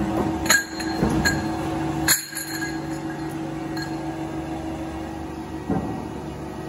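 Short cut steel tube pieces clinking against each other as they are handled, with several sharp metallic clinks in the first two seconds and one more near the end, over a steady low machine hum.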